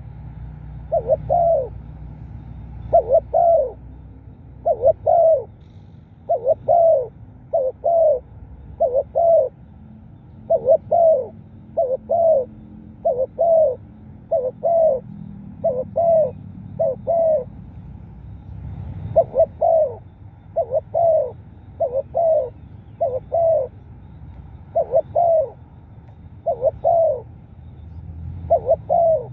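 Spotted dove cooing over and over: short low coos, mostly in pairs, repeating about once a second with a few brief pauses.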